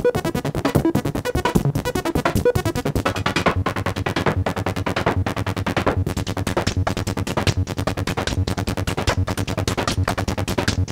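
Make Noise Strega synthesizer playing a fast, even pattern of clicky percussion made from its clock noise and feedback, sequenced by a 0-Ctrl, under pitched tones played from a keyboard. A low held tone comes in about three seconds in.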